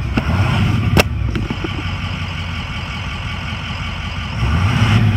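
Ford E-450's 6.0-liter V8 turbo-diesel idling steadily, heard from inside the cab, fully warmed after about an hour of running and sounding healthy. A sharp click comes about a second in, and the rumble grows louder near the end.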